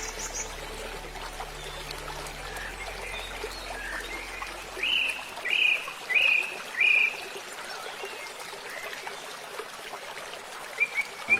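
Flowing water running steadily, with birds chirping over it; about five seconds in a bird gives four loud, evenly spaced calls, each a quick rise then a fall.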